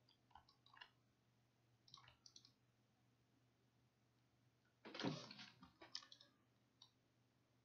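Faint computer mouse clicks in small clusters, with a louder brief rustle about five seconds in and a few more clicks after it, over a faint low steady hum.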